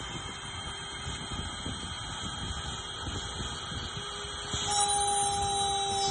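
CNC 6040 router's spindle running steadily with a thin high whine while the bit carves into a wooden cylinder turned on the rotary axis, with a faint crackle of cutting. About four and a half seconds in, the sound gets louder and a stronger, lower whine joins in.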